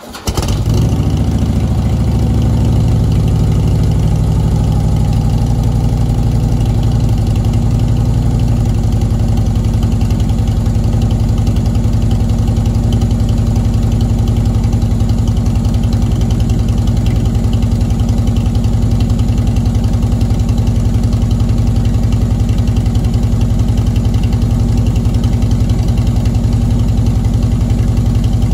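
Harley-Davidson V-twin motorcycle engine catching right at the start and then idling steadily, warming up.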